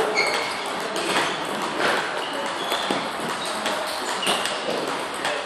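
Table tennis balls clicking off paddles and bouncing on the tables in quick, irregular rallies, with short ringing pings.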